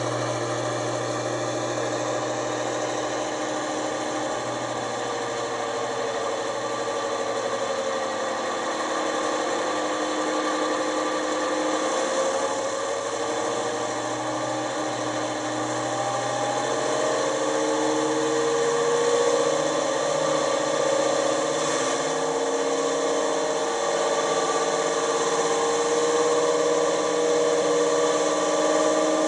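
Sound decoder in an OO gauge Class 55 Deltic model playing a Napier Deltic diesel engine through the model's small speaker. The engine runs steadily, its note slowly dipping and then rising, and grows a little louder past the middle.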